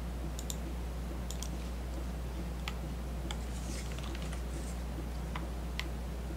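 Scattered clicks of a computer mouse, single and in short runs, as CAD features are selected, over a steady low electrical hum.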